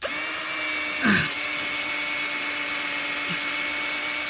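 Electric drill running at a steady pitch as it bores through steel that is hard going, starting abruptly, with a brief louder moment about a second in.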